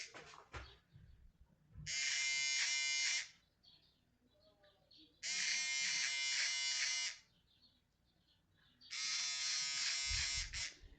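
Electric shaver buzzing in three short runs of a second or two each, switched on and off, taking off a mustache.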